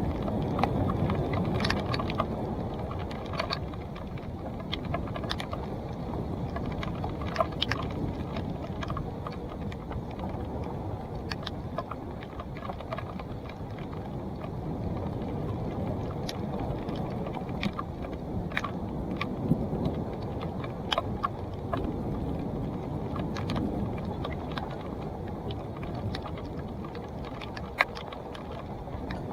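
2017 Salsa Timberjack NX1 mountain bike riding a dirt trail: steady rumble of tyres rolling with wind on the microphone, and frequent sharp clicks and rattles from the bike over rough ground.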